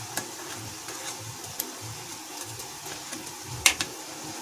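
A steel slotted spoon clinking and scraping against an aluminium kadai as sticky imartis are turned in sugar syrup: a few sharp clinks, the loudest a little over three and a half seconds in, over a faint low pulsing hum.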